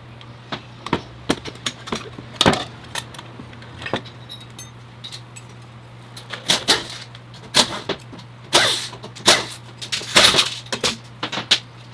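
Metal transmission parts and hand tools being handled during a teardown: irregular clinks, knocks and short rattles, over a steady low hum.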